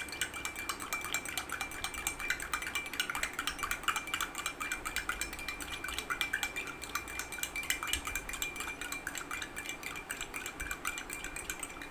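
Metal spoon stirring in a drinking glass of water, clinking rapidly and continuously against the glass.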